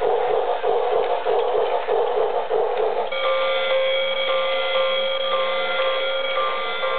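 Battery-powered Santa toy Christmas train running on its track with its sound effects on. A rhythmic chugging, about two to three beats a second, gives way about three seconds in to held electronic tones with a beep repeating about twice a second.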